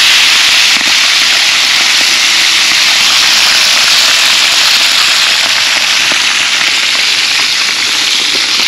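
Mojarra fillets frying in a pan of very hot oil: a loud, steady sizzle with crackling and spitting throughout.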